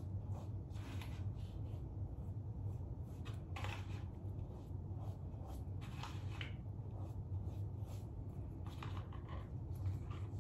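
A gloved hand working bleach mixture from a plastic bowl into a mannequin's synthetic hair: a few short brushing and rustling scrapes, spaced a second or more apart, over a steady low hum.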